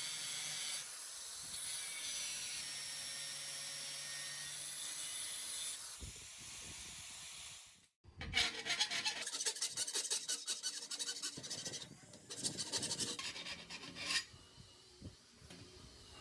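A steady hiss for most of the first half, then after a sudden break a run of rapid rubbing and scraping strokes, like filing or sanding by hand.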